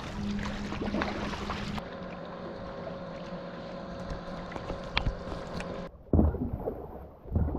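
Stand-up paddle board paddling: the paddle blade dipping and pulling through calm water, with steady faint tones under it. Near the end, heavy low gusts of wind hit the microphone.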